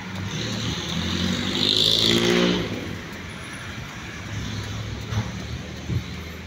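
A motor vehicle passing on the street, its engine and tyre noise swelling to a peak about two seconds in and then fading, over a steady low rumble.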